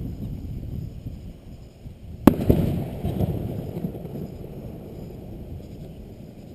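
Fireworks display: a single loud bang of an aerial shell bursting about two seconds in, followed by a rumbling echo that fades away, over the low rumble of earlier bursts.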